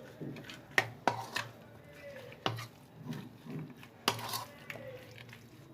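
Chicken pieces being mixed with a spice marinade in a bowl: soft, irregular stirring with a utensil that clinks sharply against the bowl about four times.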